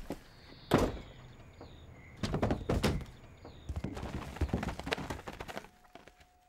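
A door thuds shut about a second in, followed by a series of further knocks and thuds.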